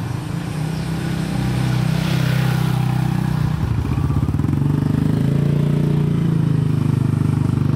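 Motorcycle engines running close by at low speed, a steady low drone that grows a little louder over the first couple of seconds and takes on a fast, even pulsing about halfway through.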